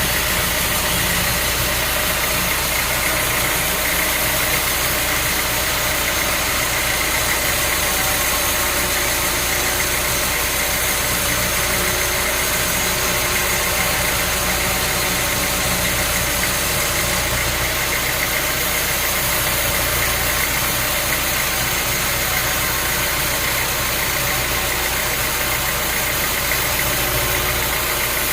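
Sawmill machinery running steadily, a constant engine-like hum with a high steady whine and no changes or cutting strokes.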